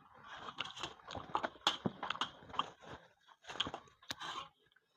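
A person chewing a mouthful of seafood basil stir-fry close to the microphone: wet smacking and small clicks at an uneven pace.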